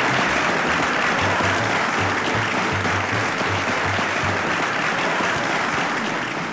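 Studio audience applauding and cheering over background music with a repeating bass line; the applause thins out near the end.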